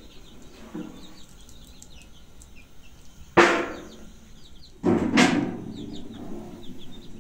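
Two loud bangs about a second and a half apart, each dying away over about a second, with faint bird chirps throughout.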